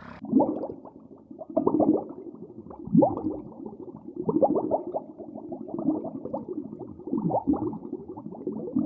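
A group of animals calling over one another: many short cries that glide up and down in pitch, with louder calls about every second.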